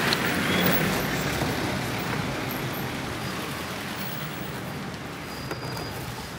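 City street traffic noise: cars passing close by, loudest at the start and slowly fading.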